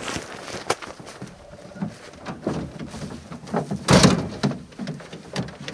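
Knocks and scuffs of a boar carcass and its carrier bumping against a ute's tail door and dog cage, with one loud thump about four seconds in.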